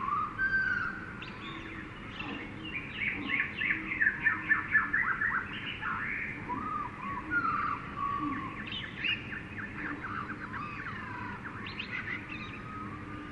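Jungle birds calling together: sliding whistles and chirps from several birds, with a dense run of quick chirps between about three and five seconds in. A faint steady low hum of background ambience runs underneath.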